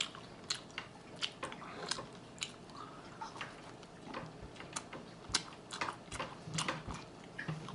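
Close-miked chewing: wet mouth clicks and smacks, a sharp click every half second or so, as a cheesy breadstick is bitten and chewed.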